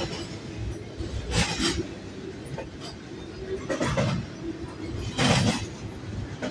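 Double-stack intermodal freight cars rolling past: a steady rumble of steel wheels on rail, broken four times by louder bursts of clatter as wheelsets pass.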